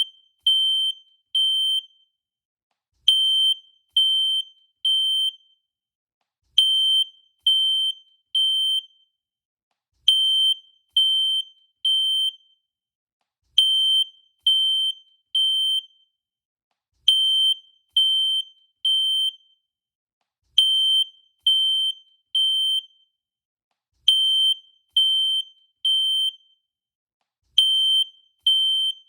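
Fire alarm sounding the temporal-three evacuation pattern: three loud, high-pitched beeps, then a pause of about a second and a half, repeating steadily.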